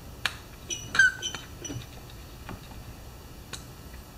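Rubber primer bulb on a Poulan 3816 chainsaw's carburetor being pressed by hand: a run of small plastic clicks and short squeaks, the loudest squeak about a second in.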